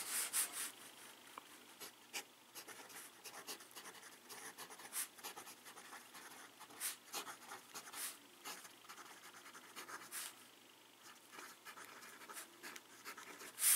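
Pelikan M205 fountain pen with a broad steel nib writing on paper: faint, irregular scratching of the nib's strokes as it writes out a line of words. The nib is very smooth, polished with 12,000-grit micro-mesh.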